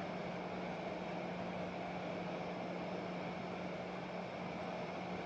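Steady low hum with an even hiss underneath: kitchen room tone.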